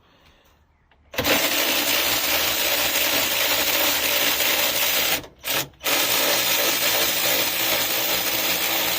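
WORKPRO cordless right-angle ratchet wrench running under its motor, undoing a car bolt. It starts about a second in, a steady loud whir, cuts out briefly around the middle with a short blip, then runs again.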